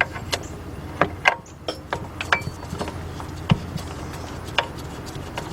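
Irregular metal clicks and knocks as a new drive-belt tensioner is worked onto its alignment pin against the engine's front cover, over a steady low hum.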